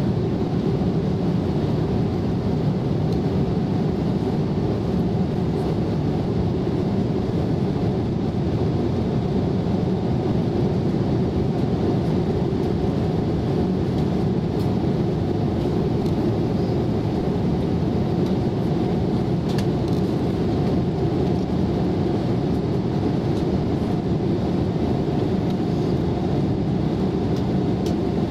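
Steady low rushing cabin noise of an airliner in flight, engines and airflow heard from inside the cabin, with a faint steady hum above it.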